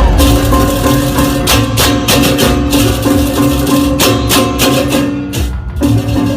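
Percussion-led music: repeated pitched notes over rapid clashing strokes and drums, with a short drop-out near the end.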